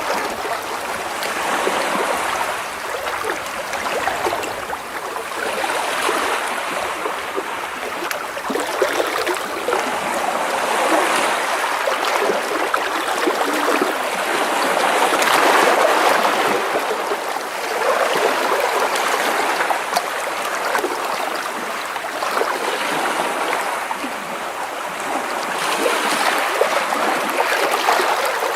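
Small sea waves washing and splashing against rocks close by, a steady sloshing that swells and ebbs every few seconds.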